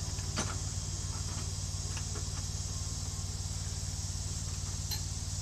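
Steady high insect chirring over a steady low mechanical drone, with a faint click about half a second in.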